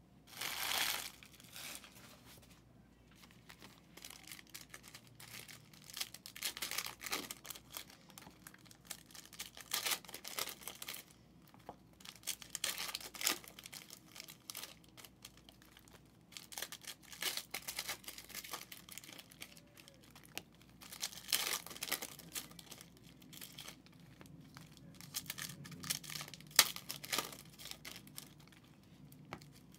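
Plastic shrink-wrap being torn and crumpled off sealed trading-card boxes, in irregular crinkling bursts.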